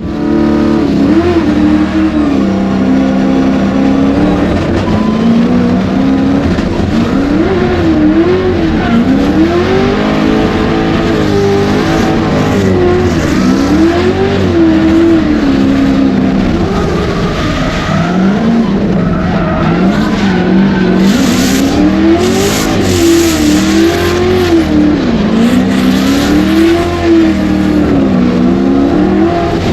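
Drift car engine revving up and down over and over as the throttle is worked mid-drift, with tyre squeal, heaviest in the second half.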